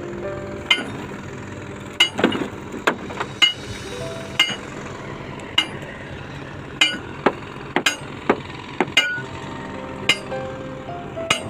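Irregular hammer blows on steel, about fifteen sharp strikes, some leaving a brief metallic ring, over a steady low hum.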